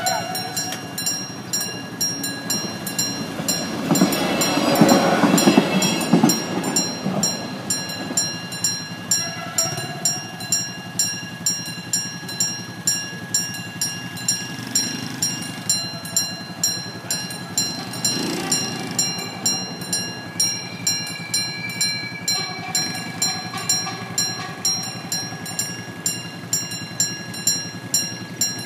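Railway level-crossing warning bell ringing with the barrier down, an even pulse of about two strokes a second. A vehicle passes loudly about four to six seconds in.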